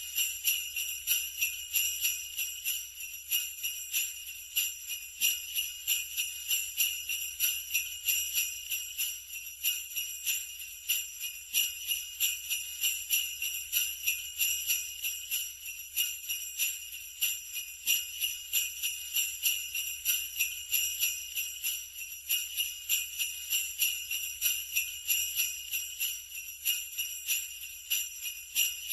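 Sleigh bells shaken in a steady, even rhythm, about two shakes a second, giving a continuous bright metallic jingling.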